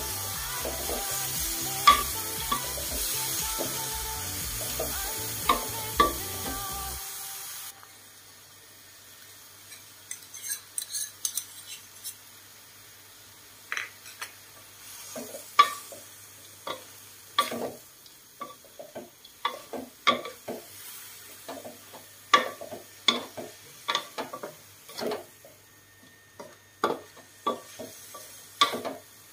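Wooden spatula scraping and knocking against a metal wok as bean sprouts and minced pork are stir-fried, with light sizzling. Background music plays for the first seven seconds or so, then stops suddenly, leaving irregular sharp clacks of the spatula on the wok.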